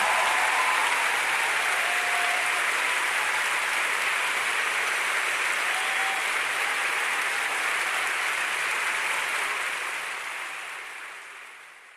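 Large concert audience applauding: dense, steady clapping that fades out over the last few seconds.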